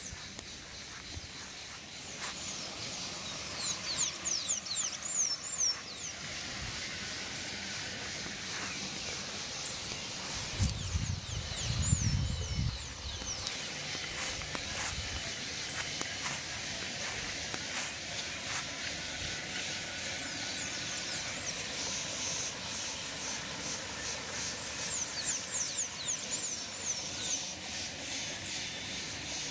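Steady hissing rush of water falling at a waterfall, with a thin high insect-like tone above it and several runs of short, quick, high descending chirps. About ten seconds in comes a low rumble lasting a couple of seconds, the loudest moment.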